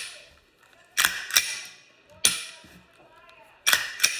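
Glock 48 pistol being function-checked after reassembly: five sharp metallic clicks and snaps as the slide is worked and the action snaps, two close together, one on its own, then two more close together.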